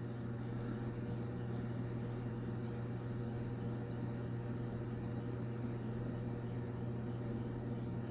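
A steady low hum over faint hiss, unchanging throughout, with no handling or tool sounds.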